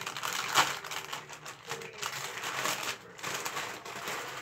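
Plastic cereal bag liner crinkling and rustling as it is handled, in irregular bursts with a sharper crackle about half a second in.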